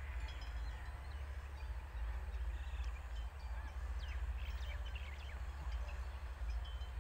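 Steady low rumble throughout, with faint short bird chirps scattered over it, most of them between about two and five seconds in.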